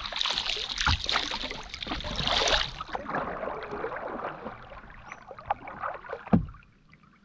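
Kayak paddles splashing and water rushing along the hull, loud for the first few seconds and then quieter. Near the end comes a single sharp knock as the hull bumps something in the river.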